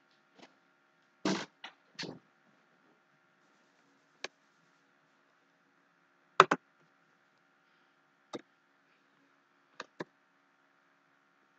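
Computer mouse clicking: a scattered series of sharp single clicks, some in quick pairs, with the loudest pair about six seconds in.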